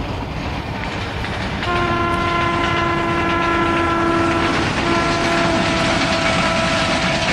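A loud, steady horn blown in two long blasts with a brief break between them, over a loud rumbling noise.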